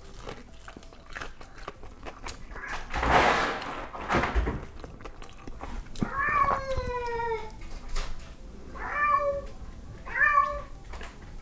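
A cat meowing in the second half: one long meow falling in pitch, then two shorter ones. Before that, close crunching and chewing of a crispy fried chicken wing.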